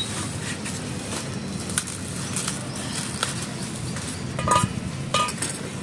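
A small knife cutting through a hard, fibrous banana stem, a crisp cut about every 0.7 seconds. Two louder clicks with a brief ring come near the end.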